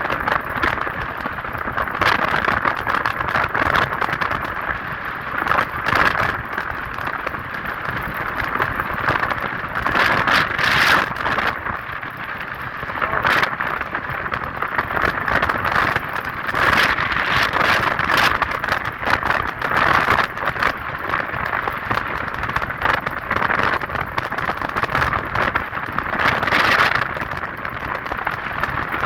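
Motorcycle riding noise from a KTM 250 Adventure on the move: a steady, loud rush of wind and road noise on the rider's microphone, rising and falling a little.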